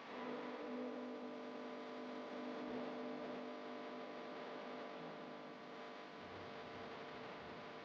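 A faint, steady hum of held tones that comes in at the very start.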